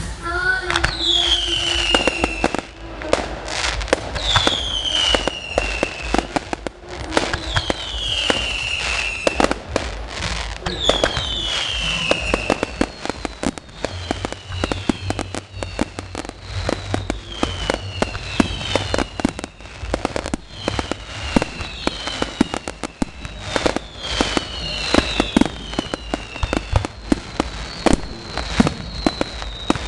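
Fireworks finale: a dense, continuous barrage of aerial shell bangs and crackling. Every few seconds a whistling shell gives a falling whistle, and these are louder in the first half.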